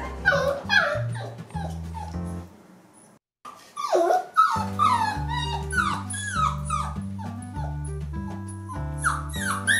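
Golden retriever puppy yipping and whimpering in quick, high, falling cries over background music with a steady bass line. Everything cuts out briefly about three seconds in.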